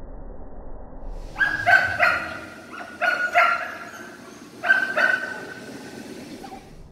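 A small dog barking in sharp, high-pitched yips, about eight barks in three quick bunches.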